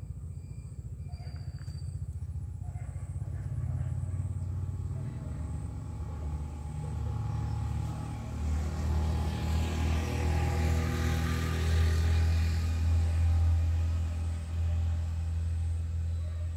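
A motor vehicle's engine rumbling as it passes, growing louder about halfway through and easing off near the end.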